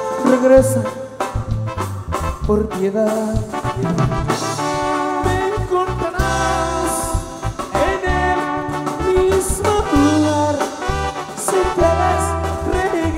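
Live band music from a concert stage: melody lines of held notes over a pulsing bass and drum beat.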